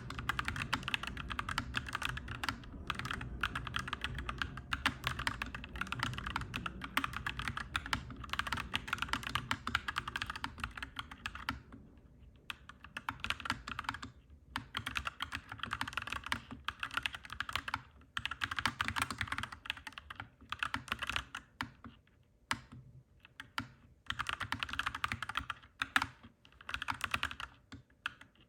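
Clacky mechanical keyboard being typed on: runs of fast keystrokes broken by short pauses, with a low rumble underneath for the first half.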